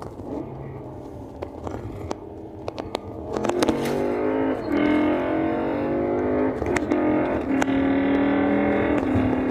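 BMW E60 M5's S85 V10 breathing through Eventuri carbon-fibre intake plenums: it runs low for about three seconds, then pulls hard with a loud rising intake howl. The pitch drops back twice at gear changes and climbs again, with a few sharp cracks around the shifts.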